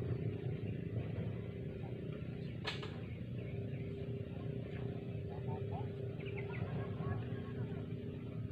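Steady low rumble with a constant droning hum, and one sharp click a little before the middle; a few faint high chirps come later.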